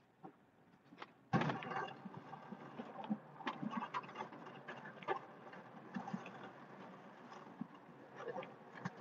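Western WideOut XL snowplow blade pushing and scraping through packed snow, heard from inside the truck cab: a sudden loud rush begins about a second in, then a steady rough scraping with scattered clicks and knocks.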